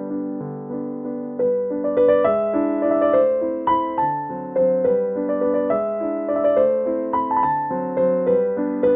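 Background piano music: a gentle keyboard melody over chords, one struck note after another, each fading before the next.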